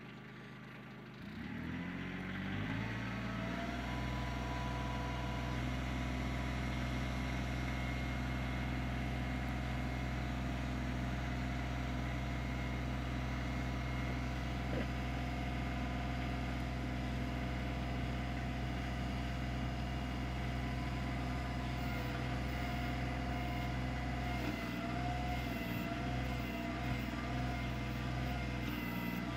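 Kioti CK25 compact tractor's three-cylinder diesel engine revving up from idle about a second in, then running steadily at a higher speed. Its pitch wavers slightly near the end.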